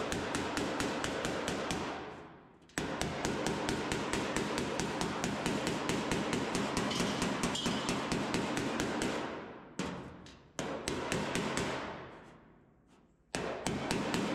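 Homemade leaf-spring slapper striking a Ford Model A roadster's steel body panel over a dolly held underneath, in runs of rapid blows about six or seven a second with short pauses between. The panel is being raised where it sits too flat against the windshield frame.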